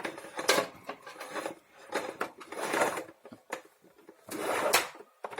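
Irregular rubbing and sharp clicks from a plastic vacuum cleaner being handled, in several short bursts rather than a running motor.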